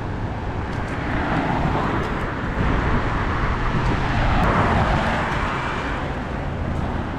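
Cars passing along a city street, their tyre and engine noise swelling and fading, loudest as a car goes by close about four to five seconds in.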